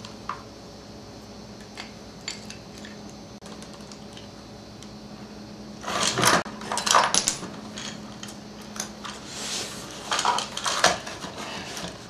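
Needle-nose pliers and the small metal clutch weights and spring of a string trimmer clinking and scraping as they are worked into place, with a few light clicks at first and two busy bursts of rattling, about six and ten seconds in.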